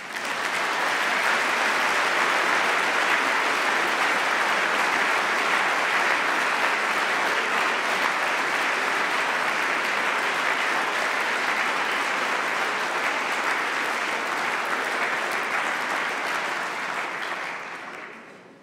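A large seated audience applauding, a steady wash of clapping that fades away near the end.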